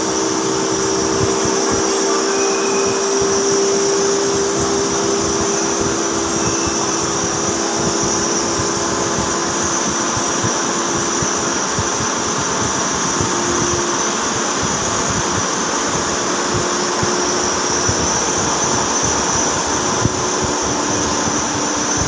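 CNC vertical turning lathe facing a steel impeller: a steady mechanical whir with a constant low hum and a high hiss, unbroken throughout.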